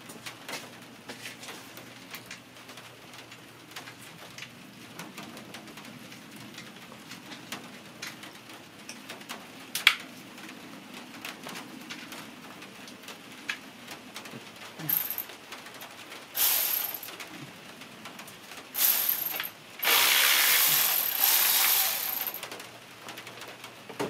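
Hand work under the hood while an ignition coil is refitted: faint clicks and taps of tools and parts, a sharp click about ten seconds in, then four short bursts of harsh hissing noise over the last nine seconds, the last and loudest lasting about two and a half seconds.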